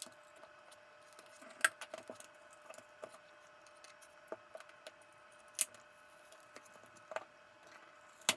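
Scattered light clicks and taps of small hand tools and parts being handled during an iPad repair, the sharpest about one and a half, five and a half and seven seconds in, over a faint steady hum.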